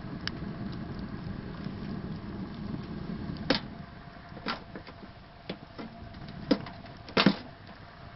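Wood fire burning in a homemade ammo can stove: a low steady rumble for the first few seconds that then drops away, with about six sharp cracks, the loudest near the end.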